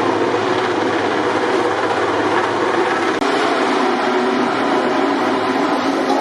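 Steady, loud mechanical noise that holds an even level without rising or falling.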